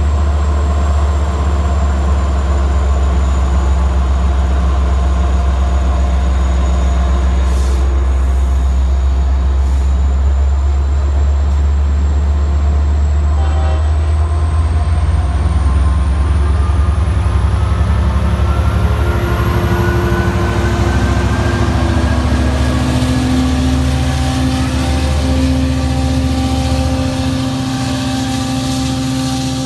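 Long Island Rail Road diesel locomotives (DE30AC/DM30AC, EMD 12-710 engines) running under load as a train of bi-level coaches departs and passes. There is a heavy, steady low engine drone, and from the middle on a whine rises in pitch as the train gathers speed.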